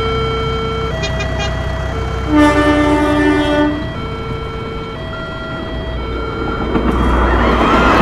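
Railroad crossing alarm sounding a steady electronic tone that switches between a lower and a higher pitch about once a second. About two and a half seconds in, a train horn blows one loud blast lasting just over a second, and the alarm carries on after it. Near the end, a loud rushing noise builds as the train reaches the crossing.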